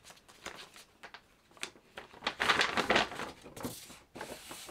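Paper gift bags rustling and crinkling as they are handled and filled, with scattered light ticks and taps; the loudest stretch of rustling comes about two and a half seconds in.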